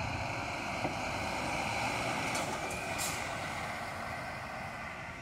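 Intercity coach's diesel engine running as the coach pulls past and drives away, its sound slowly fading. Two short hisses of air come near the middle.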